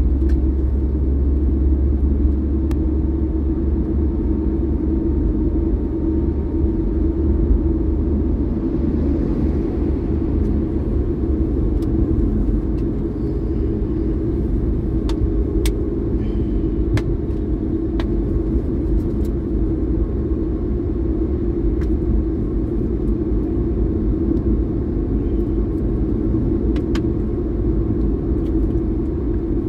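Steady low rumble of a car driving at road speed, engine and tyre noise heard from inside the car, with a few faint clicks.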